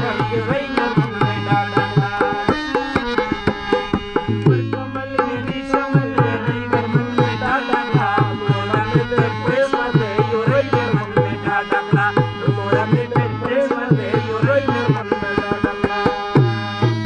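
Instrumental South Asian folk music played live on a hand-pumped harmonium and a tabla pair. The harmonium holds a melody of sustained notes while the tabla keeps a steady repeating rhythm, the bass drum's deep strokes bending in pitch.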